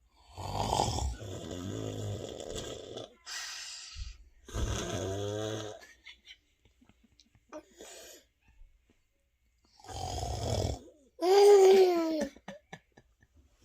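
Snoring in several long, rasping breaths with pauses between them. About eleven seconds in comes a louder, pitched groan that bends down and back up in pitch.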